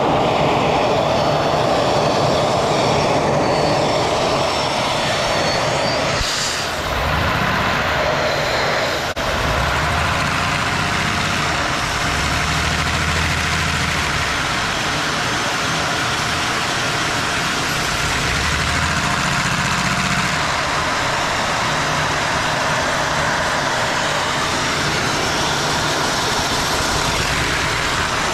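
Vacuum cleaners running steadily, drawing air through hoses to drive a LEGO radial six-cylinder vacuum engine, which runs smoothly under the steady noise.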